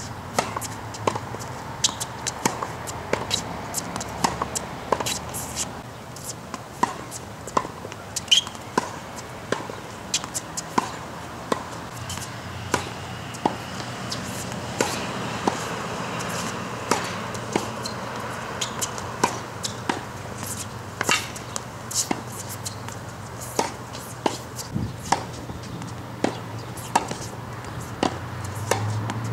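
Tennis practice rally: a steady string of sharp pops as tennis balls are struck by rackets and bounce on a hard court.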